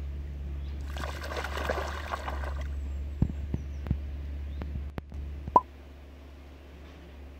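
Lake water splashing and sloshing around a dog wading chest-deep, for about two seconds from about a second in, followed by a few sharp drip-like clicks, over a steady low rumble.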